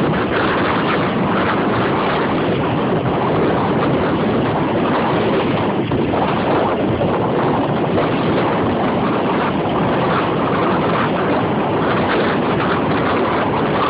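Small open boat under way at sea: a steady rush of motor and water, with wind buffeting the microphone.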